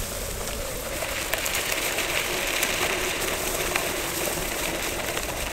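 Evolve Bamboo GT electric mountainboard rolling over grass and dirt: a steady rumble from its pneumatic all-terrain wheels and trucks, with scattered clicks and rattles.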